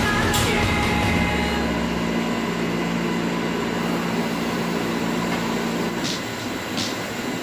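Steady hum of workshop machinery, most likely the wire-cut machine, with a single click just after the start. The hum drops out about six seconds in, and a couple of sharp clicks follow.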